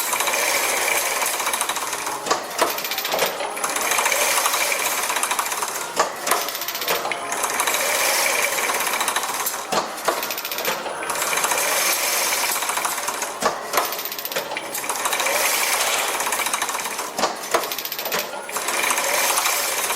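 Automatic chain-link (Rabitsa) mesh weaving machine running: a dense mechanical rattle that repeats in cycles of about four seconds, each cycle ending in a short clatter of clicks and a brief high whine.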